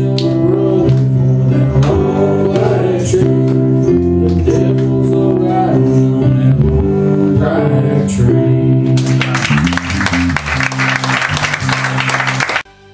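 A man singing into a handheld microphone over instrumental backing, finishing his song; about nine seconds in, the congregation breaks into applause over the last of the backing. The applause cuts off suddenly near the end, giving way to quieter instrumental music.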